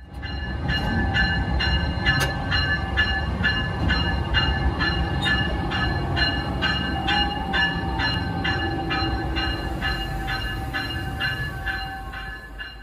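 Train bell ringing steadily, about two strikes a second, over the low rumble and steady hum of a locomotive.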